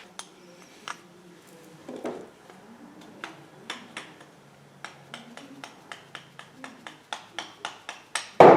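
Small steel parts of a 3/4-inch air impact wrench clicking and clinking as it is taken apart by hand, with quick light clicks about three a second over the second half and a louder knock near the end.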